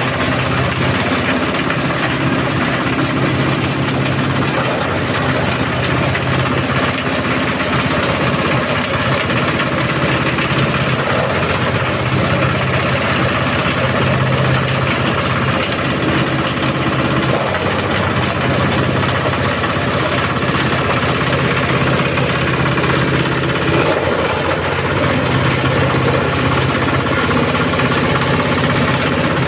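Multifunction chopping and grinding machine (chopper, flour mill and pulper in one) running steadily with a loud, constant engine-like drone.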